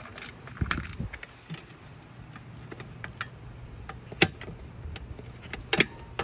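Hand tools and metal parts clicking and tapping during electrical wiring work: scattered sharp clicks, the loudest about four seconds in, over a low steady hum.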